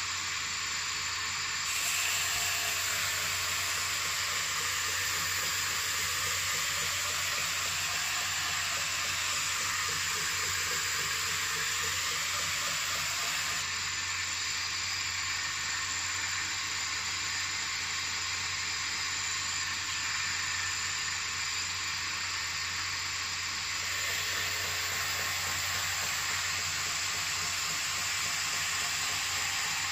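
Belt sander running with an axe's steel edge held against its abrasive belt: a steady grinding hiss over the low hum of the motor, fuller in two long stretches as the blade bears on the belt.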